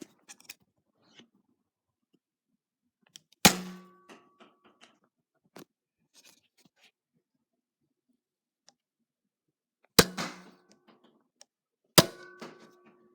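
Nerf dart blaster firing three sharp spring-powered shots, each with a brief metallic twang and rattle. The shots fall about 3.5 s, 10 s and 12 s in, with faint clicks and handling noise between them.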